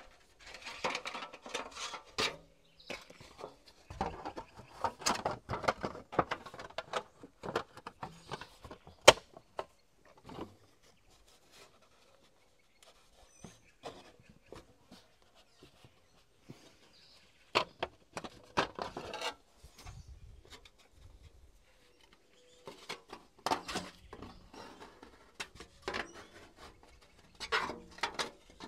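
Thin metal sheet being handled and shaped by hand against a wooden post, rattling and crinkling in irregular bursts with scattered taps, and one sharp knock about nine seconds in.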